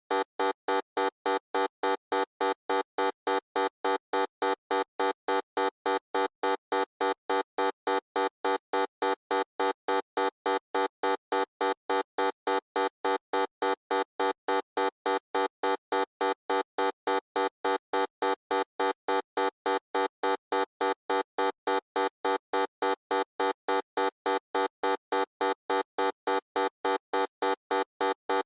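Loud electronic buzzer beeping on and off in a steady, rapid pulse, about three or four harsh beeps a second.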